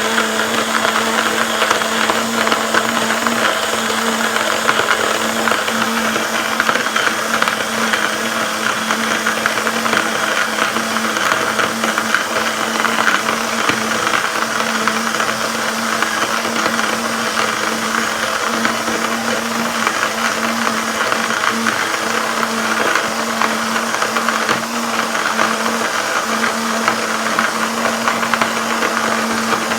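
Portable USB electric coffee grinder running steadily as it grinds coffee beans: a steady motor hum with a grainy noise of beans being milled over it.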